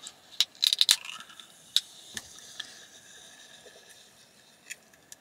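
Fingernail clicking against the tab of an aluminium soda can, then the tab cracking the can open, followed by a faint carbonation fizz that fades away, with a few more light clicks as the can is handled.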